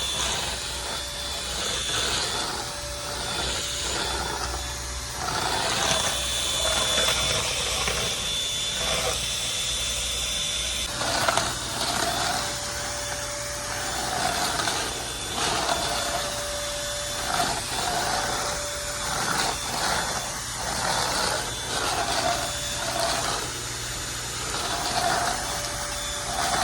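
Vacuum cleaner running steadily with a motor whine and rushing air, swelling and fading every second or two from about halfway through as it is pushed back and forth over the ground.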